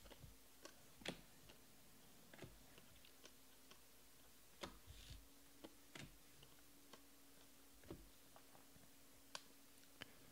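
Faint, irregular clicks and snaps of 2020 Panini Prizm baseball cards being flipped through by hand, one card at a time, over a faint steady hum.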